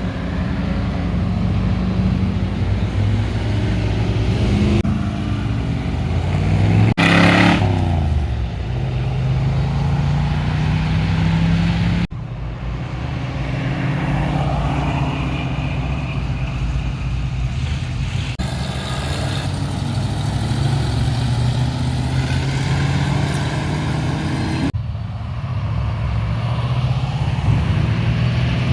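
Car engines running at idle, with one quick rev up and back down about seven seconds in. The sound switches abruptly between different engines several times.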